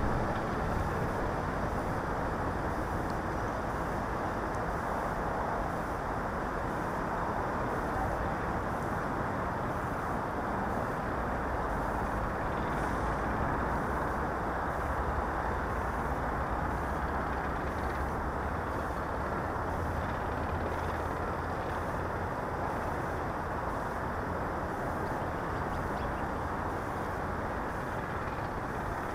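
Steady wind noise on the microphone of a crashed quadcopter's onboard camera lying in grass: an even, unpitched rushing that does not change.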